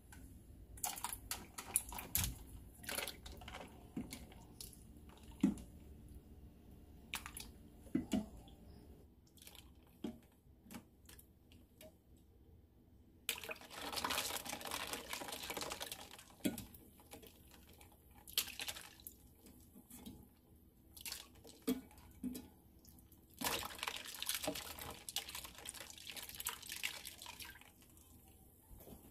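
Water running and splashing into a plastic tub of ice water holding blanched mushrooms in a steel sink, in spells of a few seconds. Over the first dozen seconds there are scattered light clicks and knocks.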